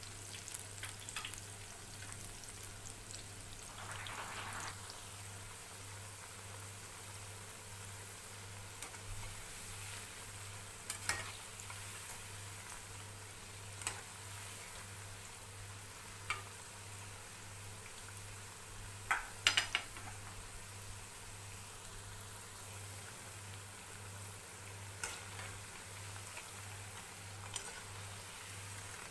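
A batch of gram-flour mixed-vegetable pakoras deep-frying in hot oil in a kadhai: a steady sizzle of bubbling oil. A metal slotted spoon clinks sharply against the pan now and then, loudest in a quick cluster a little past halfway.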